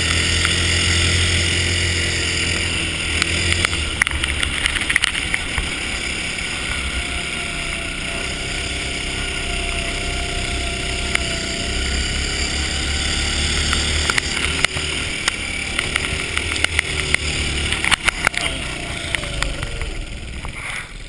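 Ice go-kart engine running under way, heard from the driver's seat, its pitch rising and falling through the corners, with scattered sharp clicks and knocks.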